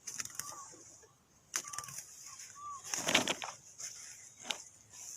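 Outdoor bird sounds: a few short, arched call notes, scattered clicks, and a louder rustle about three seconds in. A steady high insect hiss runs underneath.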